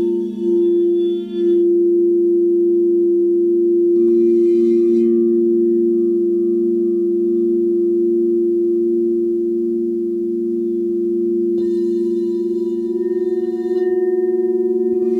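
Frosted quartz crystal singing bowls played with a wand, ringing as two steady, overlapping low tones with a slow wavering pulse. A brief bright shimmer rises on top at the start, again about four seconds in, and from about twelve seconds in, when the wand meets a bowl.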